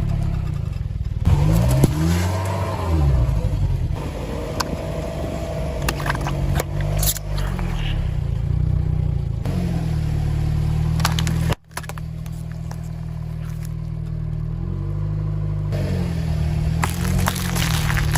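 Car engine running and revving, its pitch rising and falling several times, with a few light clicks and crackles. The sound drops out for an instant about two-thirds of the way through, then the engine resumes.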